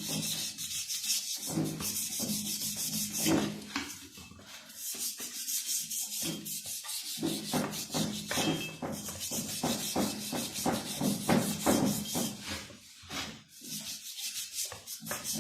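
Scrubbing a Honda CG 125 motorcycle's rear hub by hand with polishing compound: quick repeated back-and-forth rubbing strokes, pausing briefly a few times.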